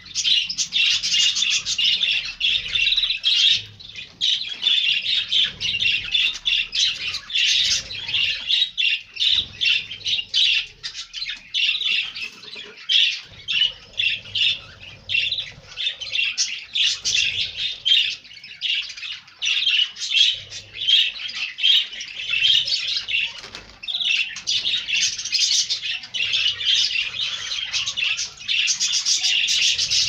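A flock of canaries chirping and twittering without pause, many short calls overlapping.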